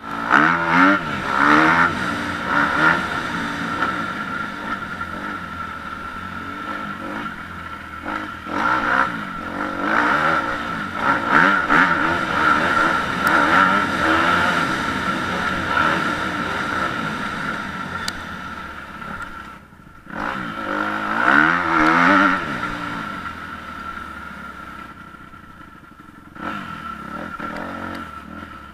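Dirt bike engine heard from the rider's helmet camera while riding, revving up hard and easing off over and over as it accelerates. It drops off briefly about 20 seconds in, revs hard again, then runs quieter near the end.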